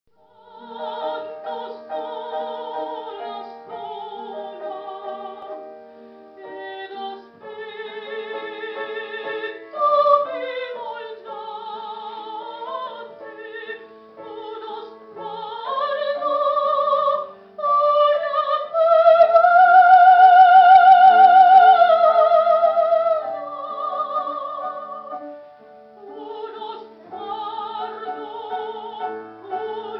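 Operatic soprano singing with wide vibrato over instrumental accompaniment, rising to a loud held high note about two-thirds of the way through.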